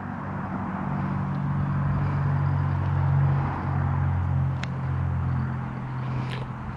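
Low, steady engine drone that swells to its loudest about halfway through and then eases off.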